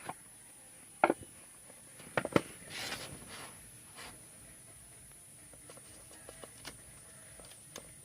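Handling of a smartphone's retail box: a sharp knock about a second in, two more close together about two seconds in, then a brief rustling slide and a few light taps. A faint steady high-pitched whine runs underneath.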